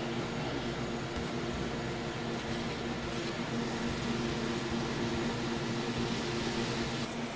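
A steady mechanical hum with several steady low tones over an even hiss, like kitchen machinery running.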